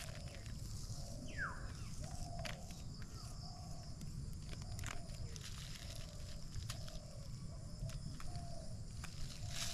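An animal calling in a run of short, low notes, one every half second or so, with one higher note sliding down in pitch about a second in. Light crackle of a plastic sheet runs underneath as dry bait is crumbled onto it by hand.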